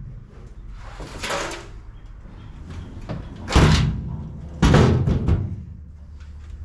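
Metal toolbox being set onto its mounting bracket on the truck: a scrape about a second in, then two loud bangs about a second apart.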